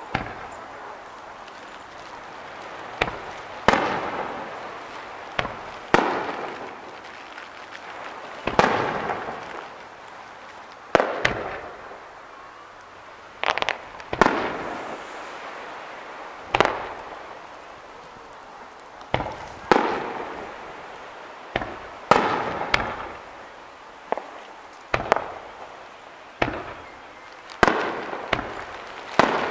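Aerial firework shells bursting one after another: sharp bangs every one to three seconds, each trailing off in a long echo.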